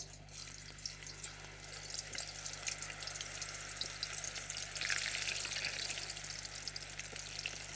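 Potato slices dropping into a pot of hot oil, sizzling as they fry, with many small crackles through a steady hiss.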